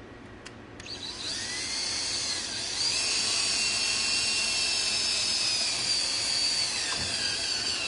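Power drill running steadily with a high-pitched whine for several seconds, starting about a second in, as it counter-drills or drives a screw into the lead edge of a composite deck board.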